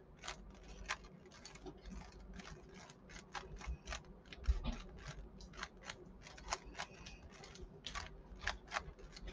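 3x3 speedcube being turned while it is scrambled: a run of quick, irregular plastic clicks, several a second, as the layers snap round.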